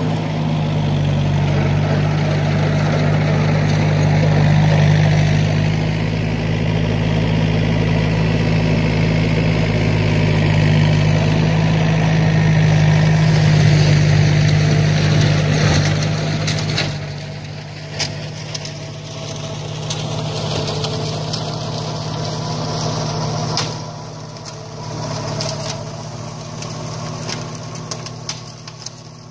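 Diesel engine of a New Holland TCE 50 tractor running steadily while it drives a flail mower through weeds. It is loud at first, then drops off about two-thirds of the way through as the tractor moves away.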